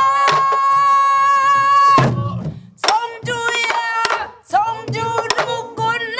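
A woman sings a Korean traditional song in pansori style, holding one long note for about two seconds before breaking off, then singing on. A group of soribuk barrel drums struck with sticks beats out the rhythm with scattered strokes under the voice.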